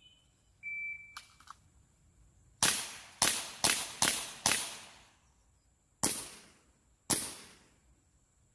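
Daisy CO2 BB pistol firing seven sharp cracks: five in quick succession, about two a second, then two more about a second apart. A short high tone sounds about a second before the first shot.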